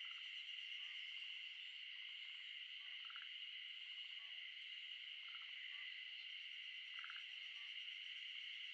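Faint natural chorus: a steady high-pitched drone, with short rattling frog croaks repeating every second or two.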